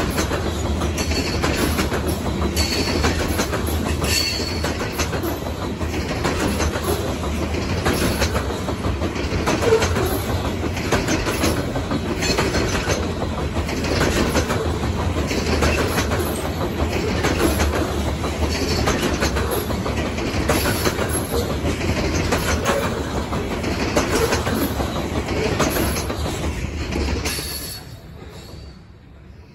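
Freight train of covered hopper cars rolling past close by: a steady rumble with the wheels clicking over rail joints at an even beat, and a few brief high wheel squeals. The sound drops away abruptly near the end as the last car passes.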